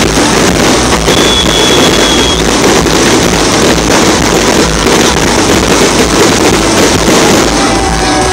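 Fireworks: aerial shells bursting into crackling gold stars overhead, a dense continuous crackle and rumble.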